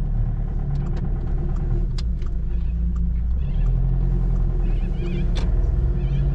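Steady engine and road drone of a car being driven, heard from inside the cabin, with a couple of sharp clicks.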